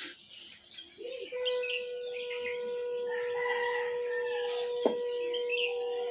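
Birds chirping and calling over a steady held tone that sets in about a second in, with a single sharp click near the five-second mark.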